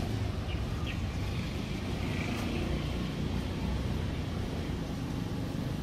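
Steady low rumble of outdoor background noise, with two faint short chirps about half a second in.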